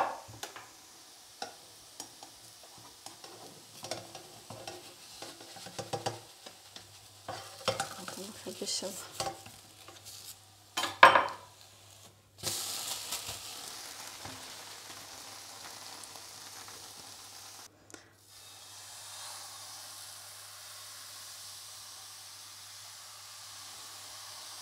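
Utensils clicking and scraping against the frying pan and batter bowl, with a couple of louder knocks, as a blin is turned out and more batter ladled. About halfway through, fresh crêpe batter hits the hot pan and sizzles steadily.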